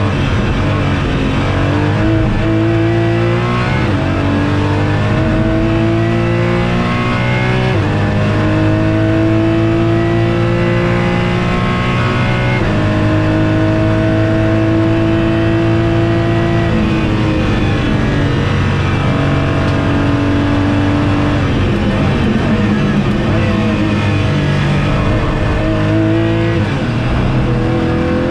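Porsche Cayman GT4 race car's flat-six engine heard from inside the cockpit at full throttle on track. Its pitch climbs through the revs and drops sharply at each upshift, several times over.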